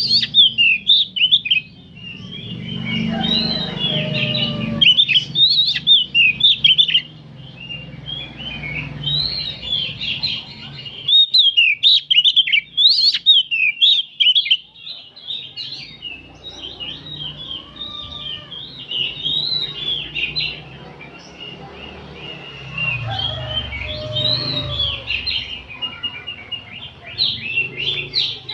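Several oriental magpie-robins (kacer) singing together, a dense chorus of fast, overlapping chirps and whistled phrases.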